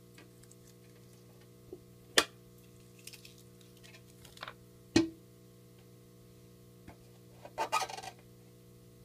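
Hard plastic clicks and knocks from a small plastic critter-keeper tank being handled while its paper wrapping is peeled off. There are two sharp knocks about two and five seconds in, lighter clicks between them, and a short crinkling rustle of paper near the end, over a steady low hum.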